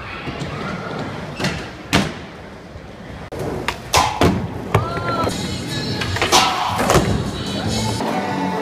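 Skateboard wheels rolling and the board clacking and slapping down in sharp hits, one about two seconds in and a cluster between about four and seven seconds, with music playing in the background.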